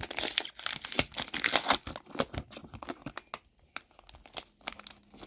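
A trading-card pack wrapper being torn open and crinkled, a dense rustle of tearing paper for the first couple of seconds, then sparser crackles as the wrapper is handled.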